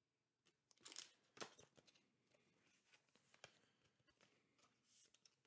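Faint rustling and light clicks of trading cards being handled and laid down on a table, loudest about a second in, with a few smaller rustles after.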